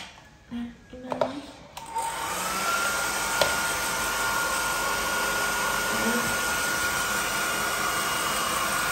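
Hair dryer switched on about two seconds in, its whine rising in pitch as the motor spins up, then blowing steadily.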